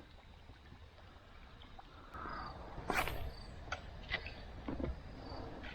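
Faint knocks and clicks around a fishing kayak, starting about two seconds in after a quiet start, the loudest about three seconds in, with small splashes of water.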